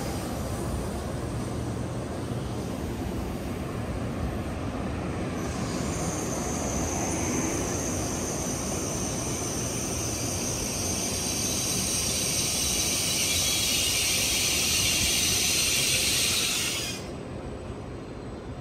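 An N700S Shinkansen train running slowly alongside the platform, with a steady low rumble. A high thin whine joins about five seconds in, then a hiss grows louder and stops abruptly near the end.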